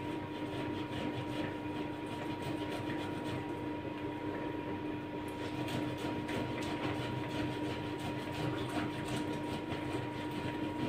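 Cold boiled potatoes being grated on a hand grater, a quick, even run of rasping strokes that shred them cleanly rather than turning them starchy. A steady hum runs beneath.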